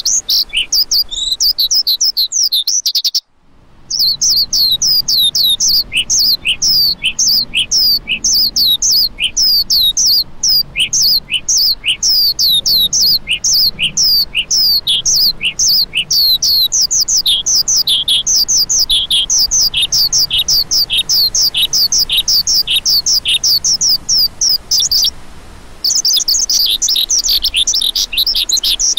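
Lark calling: a fast, continuous run of short, high chirps, each sliding down in pitch, about three to four a second, with two brief breaks, one about three seconds in and one near the end.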